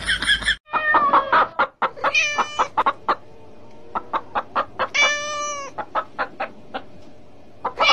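A hen clucking: short clucks at irregular intervals, with three longer drawn-out calls, the last and longest about five seconds in.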